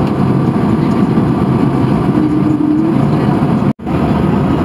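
Steady cabin roar of an Airbus A220-300 on approach, heard from a window seat over the wing: the Pratt & Whitney PW1500G geared turbofans and the airflow make a dense, low-heavy rush. The sound cuts out for a split second near the end.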